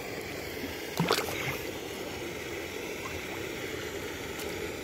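A small pirarara (redtail catfish) going back into the lake with a splash about a second in, over a steady sound of running water.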